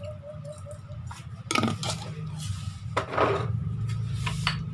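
Metal fork and spoon scraping and clinking against a glass bowl as a wet salad is mixed, with bursts of clinks about one and a half, three and four and a half seconds in. A steady low hum runs underneath.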